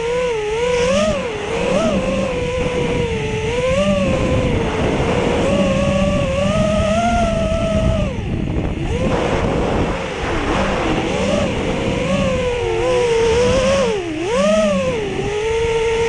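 Racing quadcopter's brushless motors (BR2205 2300KV) whining in flight, the pitch constantly swinging up and down with the throttle, over a heavy rumble of wind on the microphone.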